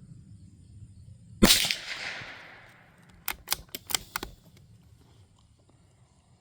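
A single shot from a Savage Mark II FV-SR bolt-action .22 LR rifle about a second and a half in, its report dying away over about a second and a half. About two seconds later, a quick run of about six sharp metallic clicks as the bolt is worked to eject the spent case and chamber the next round.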